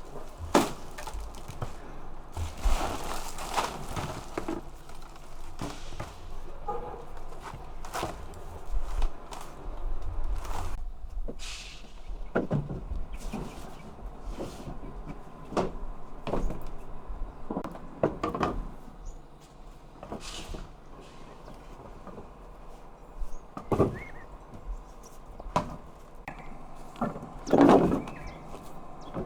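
Irregular knocks and thumps: a dozen or so scattered sharp hits over a low rustle, with a louder cluster near the end.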